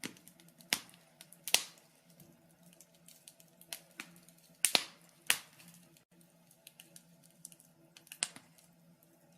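Wood fire in a fireplace crackling: irregular sharp snaps and pops, a few loud ones among many small ticks, over a faint steady low hum.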